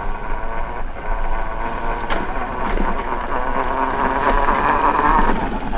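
Two small electric motors spinning the propellers of a homemade toy airplane car, a steady whine that grows louder near the end.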